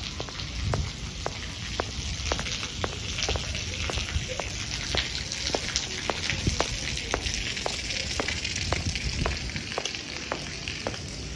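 Light rain falling with a steady hiss, and regular footsteps on wet paving, about two a second.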